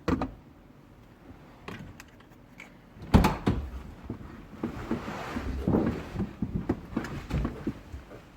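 A series of clunks and knocks with rustling handling noise between them. The loudest is a heavy thud about three seconds in.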